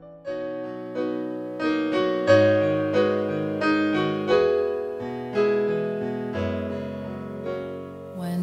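Slow piano music: chords struck about once a second over a low bass line.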